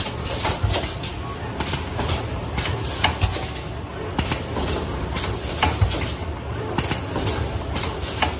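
Automatic book-box assembly machine running: irregular clicks and clacks from its moving parts over a steady low hum, with several short bursts of hiss.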